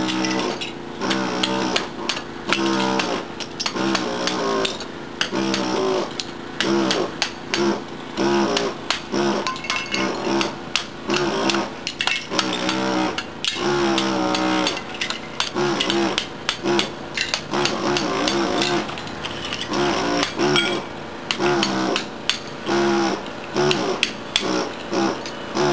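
Gison GPW-4500 pneumatic air hammer (about 4,500 blows a minute) with a flat chisel bit chipping ceramic wall tiles loose. It runs in bursts of a second or so as a buzzing hammering, with sharp cracks and clicks as the tile breaks away.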